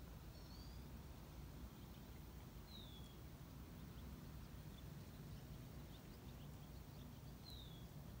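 Near-silent outdoor background with a steady low rumble, and a bird giving three short high chirps a few seconds apart, the later two sliding downward.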